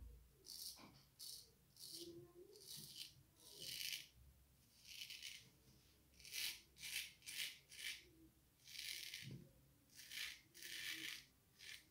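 Antoine Touzet frameback straight razor scraping lathered stubble off the neck in a quick series of short, faint, scratchy strokes. This is the first pass, shaving with the grain, downward.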